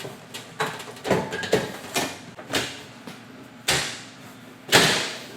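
Steel knockdown door frame jamb knocking and clanking as it is worked into place over the drywall and against the head: a run of irregular sharp knocks, the two loudest near the end.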